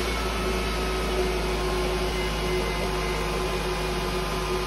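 2008 Nissan Sentra 2.0-litre four-cylinder engine idling steadily with a rattle from the right side of the engine: the belt tensioner's idler pulley jiggling on a damaged bearing.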